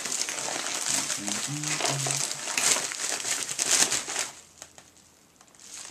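Packaging crinkling and rustling as a parcel is handled and opened, with sharp crackles, stopping about four seconds in. A short, low, steady tone sounds briefly about a second in.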